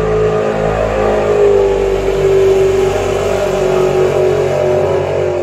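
Loud motor vehicle engine running, a steady droning note that dips slightly in pitch and stops near the end.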